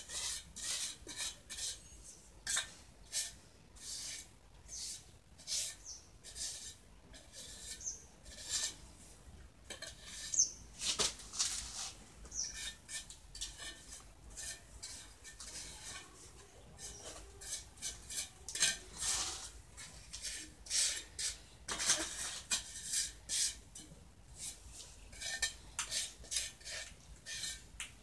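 Small steel trowel scraping and smoothing wet cement, in irregular short strokes, roughly one or two a second.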